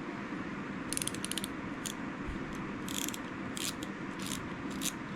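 Zebco 33 spincast reel's freshly oiled inner mechanism being worked by hand, its gears and pawl clicking in short irregular runs as the oil is turned in.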